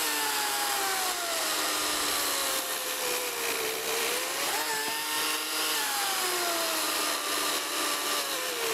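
KM Grand KMC2050 16-inch cordless chainsaw, running on two batteries at 36 V, cutting through a log about 15 cm across. Its motor whine drops in pitch as the chain bites into the wood, picks up briefly about five seconds in, then drops again.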